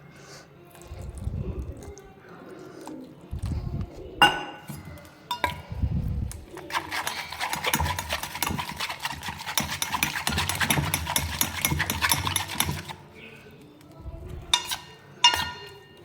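A spoon mixing besan (gram-flour) batter in a bowl after water is added, with a long stretch of fast scraping and stirring in the middle and a few sharp clinks of the spoon against the bowl near the end.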